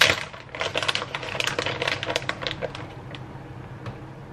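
Plastic shredded-cheese bag crinkling and crackling as it is opened and handled, in quick sharp crackles, loudest at the start and busiest over the first two to three seconds, then quieter.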